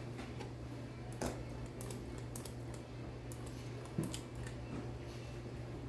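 Light clicks and taps from a squeeze-handle kitchen scoop working through chocolate frosting and knocking against a stoneware dish, the clearest about a second in and about four seconds in, over a steady low hum.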